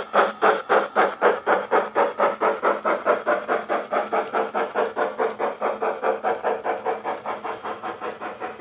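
Model steam locomotive's DCC sound decoder, playing through a small speaker in the tender, gives a steady beat of steam exhaust chuffs, about four a second. The chuffs grow gradually fainter as the train moves away.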